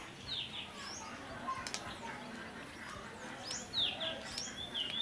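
Small birds chirping: several short, high chirps that sweep downward, then a wavering, warbling trill near the end.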